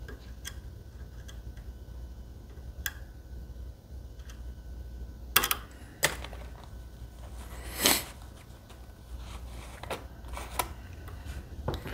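A lock pick and tension wrench working the pins of a Medeco lock cylinder: scattered light metallic clicks and short scrapes, about half a dozen, with a slightly longer scrape about two-thirds of the way through. The picker thinks the pick is catching on the cylinder's tight warding.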